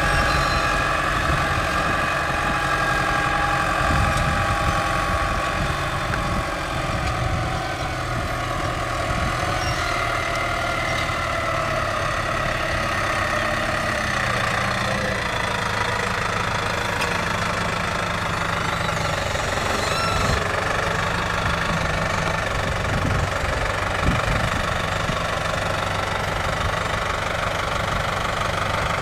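Engine of the machine working a MOLE tree transplanter, running steadily under load, with higher whining tones that shift in pitch about halfway through and a sharp knock near the end.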